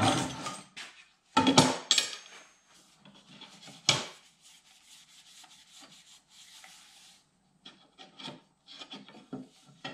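Thin metal plates being handled and set against a fabricated exhaust manifold on a metal workbench: a clatter right at the start, more clanking about one and a half to two seconds in, and a sharp knock about four seconds in. After that come quieter rubbing and scraping of metal on metal, with a few small clicks near the end.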